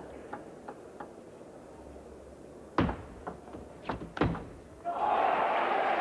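Table tennis rally: a few light ticks of the ball, then sharp knocks of celluloid ball on bat and table, the loudest about three seconds in. About five seconds in, the crowd suddenly breaks into cheering and applause as the point ends.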